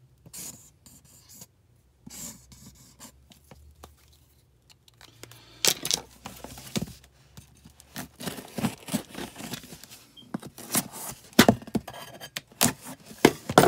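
A pen scratching on a cardboard shipping box, then the box being handled on a hard counter and a knife slitting its packing tape: a run of sharp scrapes, knocks and tearing from about six seconds in.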